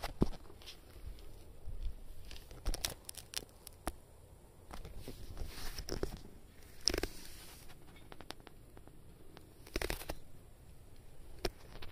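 Scattered rustling and scuffing with a few soft knocks, irregular and a second or so apart: close handling and movement against a carpet.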